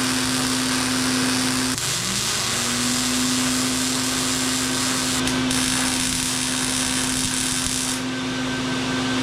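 Electric hand power tool running steadily at a constant high speed. About two seconds in its pitch dips sharply as the motor bogs under load, then climbs back to full speed.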